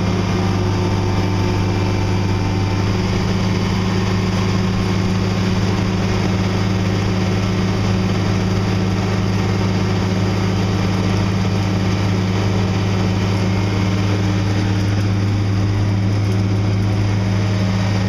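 Case IH combine running, a loud, even engine drone that holds steady throughout.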